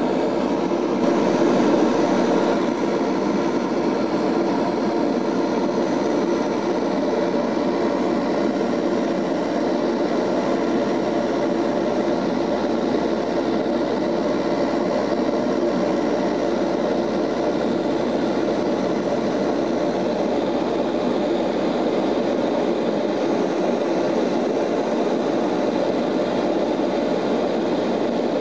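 Steady cabin drone of a Lockheed L-188 Electra in flight, its four Allison 501 turboprops and propellers running with a constant hum of propeller tones over the airflow noise. The level swells slightly about two seconds in.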